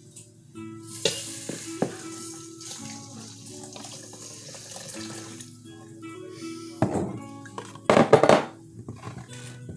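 Hot seasoned water poured over dry Rice-a-Roni in a stainless steel bowl, with two louder clattering bursts from the metal bowl near the end, over steady background music.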